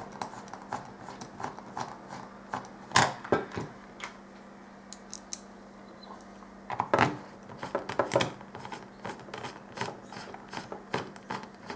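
Hand screwdriver driving small M4 screws into a 3D-printed plastic part: irregular small clicks and ticks of the screwdriver in the screws and plastic, with a few louder knocks about three and seven seconds in.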